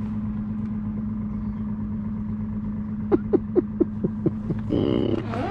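Outboard motor idling with a steady hum. About three seconds in, a rapid run of short chirps comes over it, about four a second, followed by a brief harsher sound.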